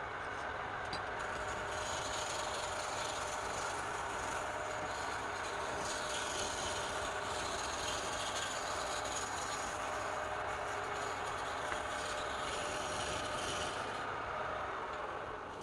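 Wood lathe running with a turning tool cutting the spinning wood: a steady scraping noise that eases off near the end.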